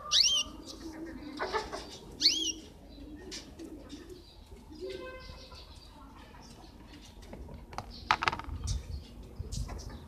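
Small caged finches chirping. There are two loud rising calls, one just after the start and one about two seconds in, then scattered short chirps and clicks.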